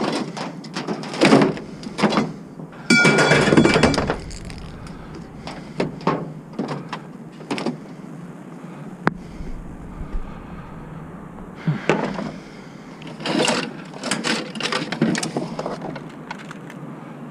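Junk being handled and tossed about inside a dumpster: a string of clunks, knocks and rattles, with a loud ringing clatter about three seconds in.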